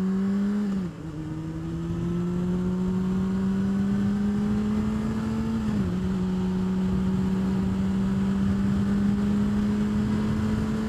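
Honda CBR600RR inline-four engine pulling under acceleration, its note climbing slowly. The note drops sharply with an upshift about a second in and again about six seconds in, then holds nearly steady. It comes through the stock exhaust with its baffle still in.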